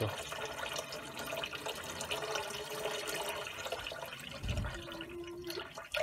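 Caravan kitchen tap running a steady, unpulsing stream into a bowl of water in the sink, fed by a 12 V Whale pump through a newly recalibrated pressure switch. There is a brief low thump about four and a half seconds in.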